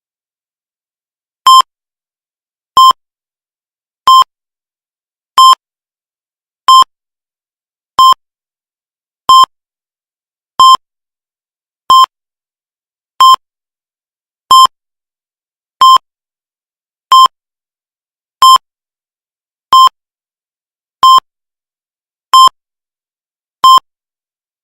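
Heart rate monitor beeping: a short, clean mid-pitched beep repeating steadily about every 1.3 seconds, eighteen in all, each beep marking a heartbeat at a slow, regular rate of about 46 a minute.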